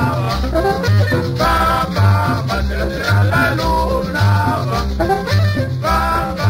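Latin dance music, the cumbia-salsa kind, with a bass line pulsing about twice a second under the melody.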